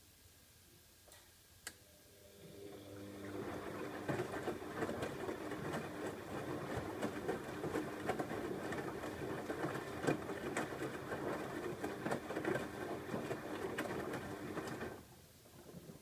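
Bosch Maxx WFO3274EX front-loading washing machine turning its drum in the wash phase: after a short click, the motor starts about two and a half seconds in and runs with a steady hum while the wet laundry sloshes and tumbles, then stops about a second before the end.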